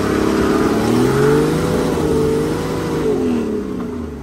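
Toyota Land Cruiser's engine revving, heard from inside the cabin. The pitch rises about a second in, holds, then falls away near the end as the revs drop.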